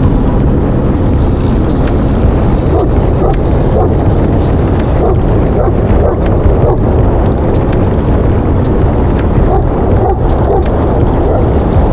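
Steady road and engine rumble inside a moving truck, with a Cane Corso barking several times through the middle.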